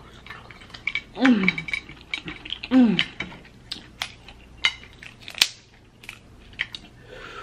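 Snow crab leg shells cracking and snapping as they are broken apart by hand, a scattered run of sharp cracks and clicks with the sharpest snap about five seconds in. Two short falling vocal groans come about one and three seconds in.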